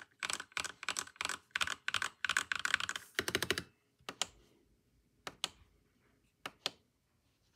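Keys of a Langtu LT84 mechanical keyboard being pressed: a fast run of keystrokes for about three and a half seconds, then single and paired key presses spaced about a second apart.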